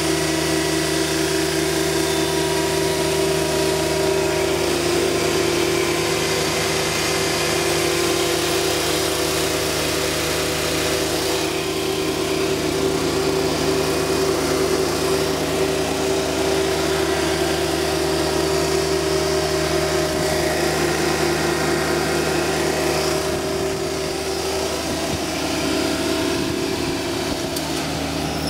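Kubota D1105 three-cylinder diesel engine of a Jacobsen LF1880 fairway mower running steadily.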